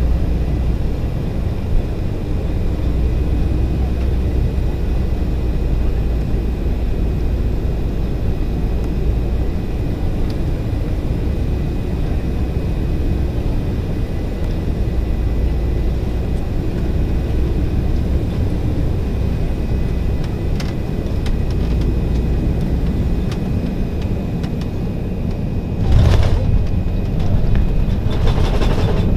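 Cabin noise of an Embraer 190's two turbofan engines and airflow on final approach, a steady low rumble. About 26 seconds in, a sudden louder burst as the main wheels touch down, then a louder rush of noise as the jet rolls out on the runway.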